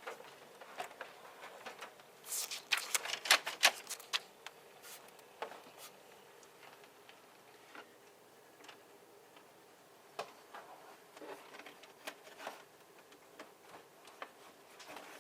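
Canon Pixma MG2520 inkjet printer initialising after power-on with new ink cartridges fitted: a quick run of sharp mechanical clicks and clatter about two seconds in, then scattered lighter clicks and ticks.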